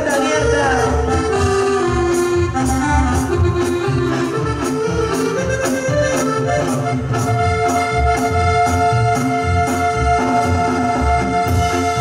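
Live band playing an instrumental passage of Latin dance music: a lead melody with long held notes over bass and drums keeping a steady beat.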